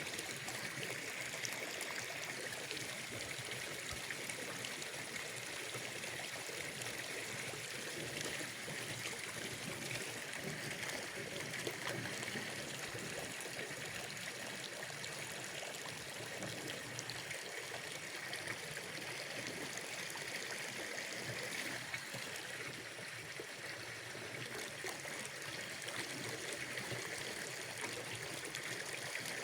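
Steady, unbroken sound of gently running, trickling water.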